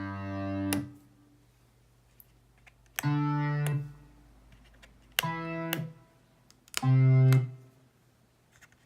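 Short pitched chords from a GarageBand software instrument, triggered by a home-built Arduino MIDI footswitch board. One chord is fading at the start, and three more come about 3, 5 and 7 seconds in. Each lasts under a second and opens and closes with a sharp click.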